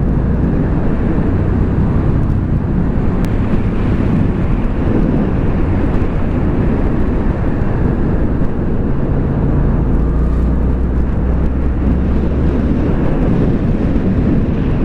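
Yamaha FZ-07 motorcycle's parallel-twin engine running steadily while riding, with a dense low rumble.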